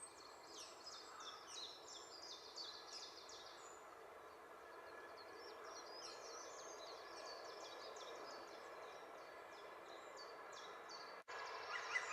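Faint chirping of small songbirds over steady background noise. About eleven seconds in, after a brief break, a green woodpecker starts its loud laughing call, a rapid run of repeated even notes.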